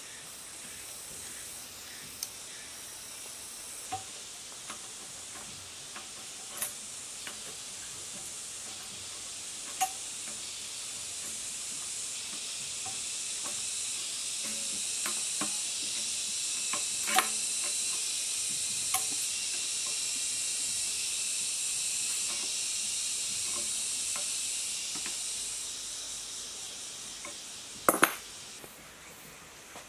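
A steady high-pitched hiss that swells through the middle and fades near the end, with scattered light clicks and a sharp double knock near the end.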